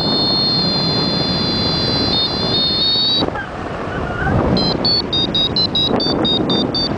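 A flight variometer sounding over heavy wind noise on the microphone. It gives a held tone that steps slightly in pitch for about three seconds, then breaks off. A little later it starts rapid beeping at about four beeps a second, the vario's signal that the glider is climbing in lift.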